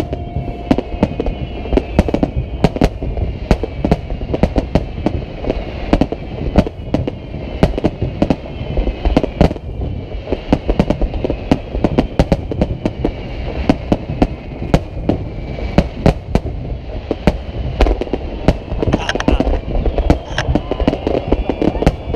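Fireworks display in a continuous barrage: many shells bursting and crackling in rapid succession, several bangs a second with no let-up.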